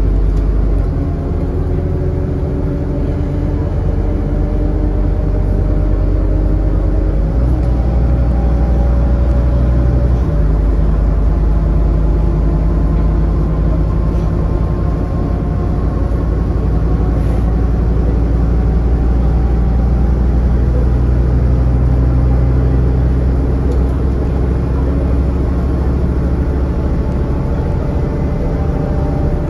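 Scania N230UD double-decker bus's diesel engine and drivetrain heard from inside the passenger saloon while the bus is under way: a loud, steady low drone, with a whine that slowly rises in pitch and changes in the engine note about 7 and 10 seconds in.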